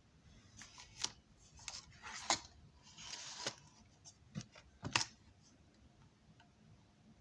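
Handling noise: a series of small sharp clicks and brief rustles, about half a dozen over a few seconds, with a short rasping rustle in the middle, as something small is picked up and moved.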